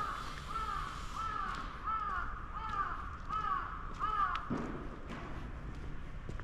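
A crow cawing about seven times in a steady series, a caw every two-thirds of a second or so, stopping a little after four seconds in.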